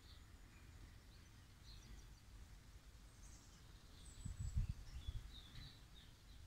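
Faint birds chirping here and there over a quiet low background, with a brief low muffled rumbling about four seconds in.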